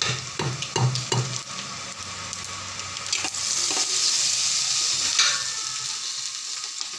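Tempering of garlic, dried red chillies, mustard seeds, cumin, chana dal and curry leaves sizzling in hot oil as the pan is stirred, with a few light knocks in the first second. The sizzle gets louder about halfway through and eases again after about five seconds.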